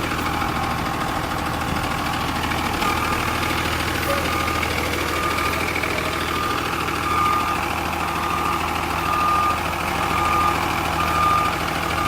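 2001 Blue Bird bus engine running steadily. About three seconds in, its reversing alarm starts beeping, one short beep about every three-quarters of a second.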